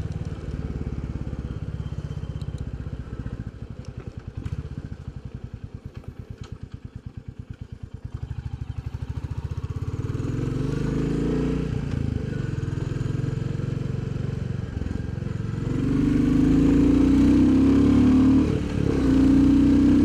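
Royal Enfield Bullet 350's single-cylinder engine on the move: the exhaust beat falls away over the first eight seconds until the separate firing pulses can be heard, then picks up again and grows louder, loudest from about sixteen seconds in, with a brief dip near the end.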